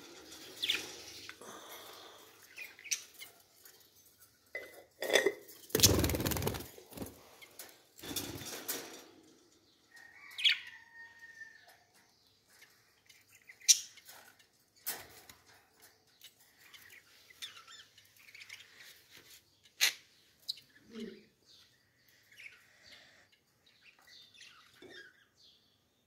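Caged budgerigars chirping now and then, with a few loud rustling bursts about five to nine seconds in and a handful of sharp clicks later on.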